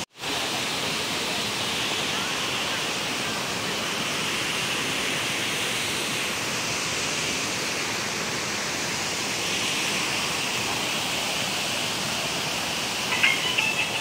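Water rushing steadily over rocks in a small cascading stream below a waterfall, an even hiss of splashing water. About a second before the end, a few short broken tones come in over it.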